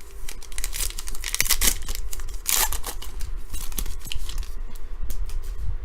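A trading-card pack's wrapper being torn open and crinkled, with the cards handled: a busy run of sharp tearing and crackling noises, loudest about one and a half and two and a half seconds in.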